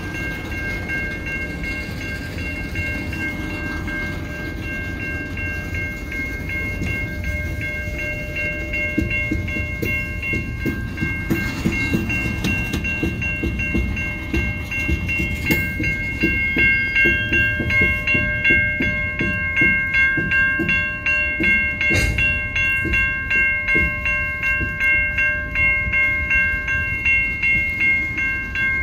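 Railway tank cars rolling through a level crossing, with a low rumble and wheels clacking over the rail joints, while the crossing's warning bell rings steadily. About halfway through, the bell's regular strikes become louder and more distinct.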